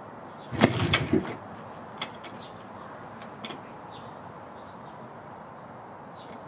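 A kick on the kickstart of a 1985 Kawasaki KX500's single-cylinder two-stroke engine, making a loud clattering burst about half a second in that lasts under a second. The engine does not catch, and a steady background hiss with a few small clicks follows.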